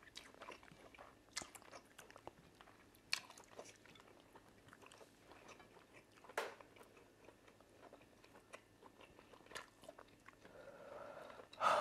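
Faint mouth sounds of people eating fufu and soup with their fingers: chewing with scattered short, wet smacks and clicks a second or more apart, and a louder smack near the end.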